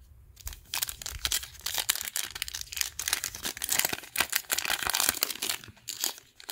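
Foil wrapper of a Panini Mosaic basketball card pack crinkling and crackling as it is handled and torn open by hand. The crackling is dense and irregular, with a short lull near the end.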